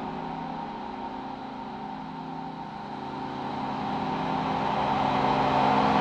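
Ethereal ambient drone: a dense cluster of sustained tones over a hissy shimmer, swelling slowly louder through the second half.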